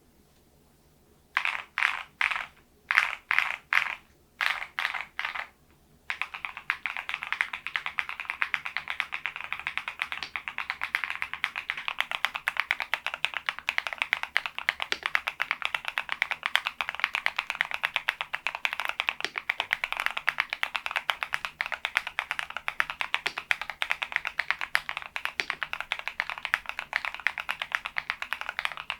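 Typing on a HALO65 V2 mechanical keyboard fitted with thick PBT Cherry-profile keycaps. First come a few short clusters of keystrokes. From about six seconds in there is fast, continuous typing with an even, dense patter of key clicks.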